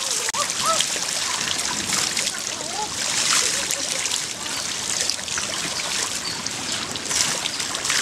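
Swimming-pool water splashing and trickling as a small child paddles and kicks in it, a steady wash of small splashes.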